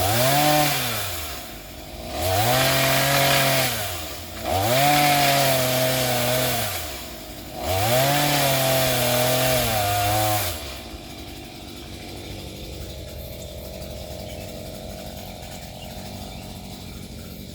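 Chainsaw revved hard four times, its engine pitch climbing and sagging in each burst as it cuts into a tree limb. About ten seconds in the revving stops sharply, leaving a much lower steady sound.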